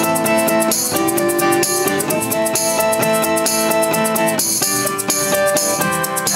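Instrumental passage of acoustic indie rock: an acoustic guitar playing chords, with a tambourine shaken in a steady rhythm over it.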